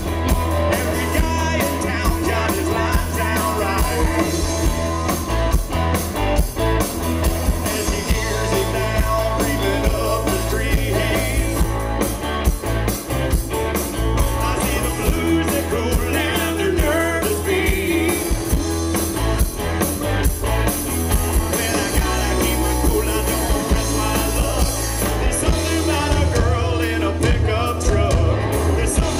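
Live country band playing a song: drums, bass and guitar, with singing.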